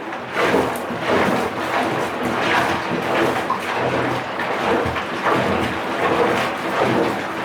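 Loose Lego bricks being washed in soapy water, water and plastic pieces sloshing and clattering in repeated swells about once or twice a second.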